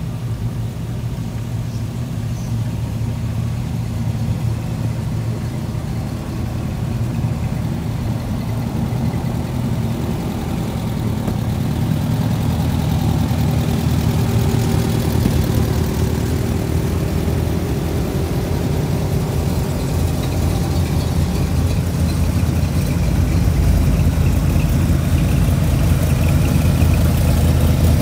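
A car engine idling steadily, getting louder through the second half.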